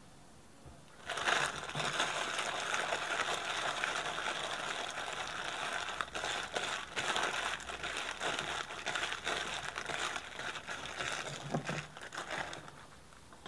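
Thin plastic bag worn over a hand crinkling continuously as it tosses seasoned pickled radish pieces in a bowl. It starts about a second in and stops shortly before the end.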